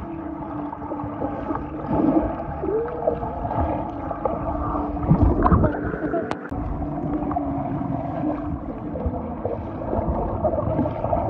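Muffled underwater sound of sea water gurgling and churning with swimmers' splashing, from a camera going under and back up through the surface, with a steady low hum running through it.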